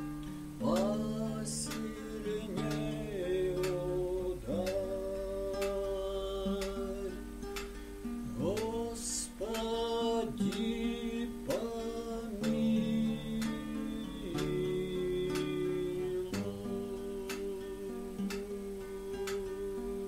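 A man singing a slow melody, sliding up into his notes, while accompanying himself with steady strummed chords on a classical acoustic guitar.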